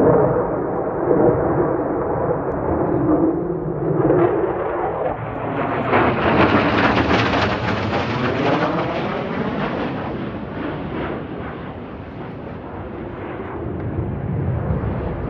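Jet engine noise of an F-16 fighter in flight: a loud, steady rumble. About five seconds in it brightens into a hissing sweep as the jet passes, then fades somewhat before building again near the end.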